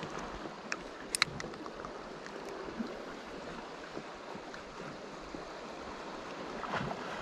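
Water lapping and sloshing against a small boat's hull, with a few sharp clicks a little over a second in.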